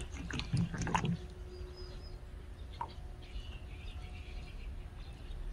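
Faint, scattered high chirps of birds in the background, with a short squeak a little before the middle.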